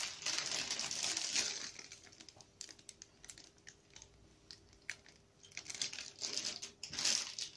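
Plastic cookie wrapper crinkling as it is handled, loudest in the first second and a half, then light scattered rustles and clicks, with more crinkling near the end.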